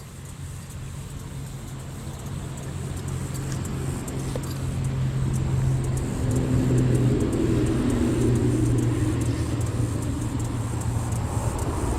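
Motor vehicle on the road, its steady low engine hum growing louder over the first six or seven seconds and then holding loud.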